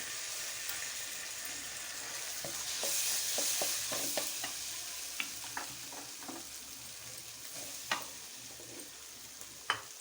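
Vegetables, egg and chicken pieces sizzling in oil in a pan as a spatula stirs them, the sauces just added; the hiss swells a few seconds in, then eases. Scattered clicks of the spatula against the pan, with a sharper knock near the end.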